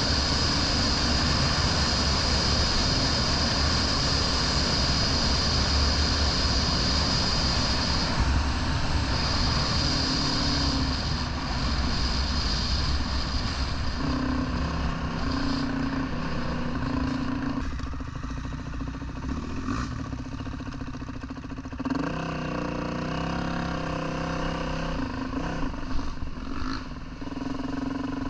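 Dirt bike engine running while riding, with a steady rush in the first half; from about halfway its pitch rises and falls as the rider revs and changes speed.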